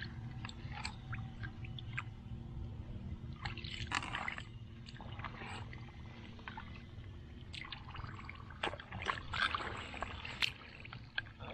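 Hands working in shallow water, making scattered small splashes, trickles and drips at an irregular pace.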